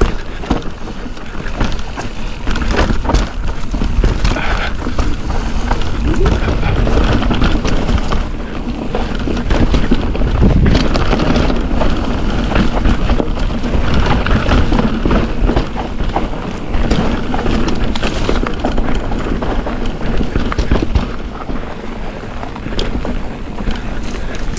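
2023 Ibis Ripmo V2S mountain bike riding a dirt downhill trail: tyres rolling on dirt, with the bike clattering and knocking over rough ground. Steady low wind rumble on the microphone throughout.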